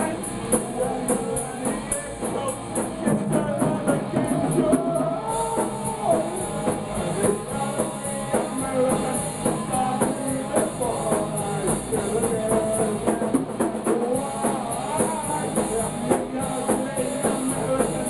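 A punk rock band playing loudly: electric guitar and drums in a dense wall of noise, with a steady beat of cymbal hits.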